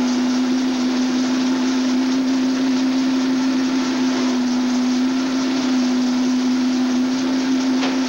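Electric shoe-repair finishing machine running: a steady motor hum with an even whirring hiss from its spinning wheels.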